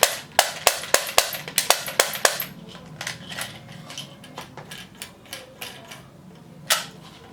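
Plastic toy gun mechanism clicking sharply, about three clicks a second at first, then scattered clicks, with a louder snap near the end.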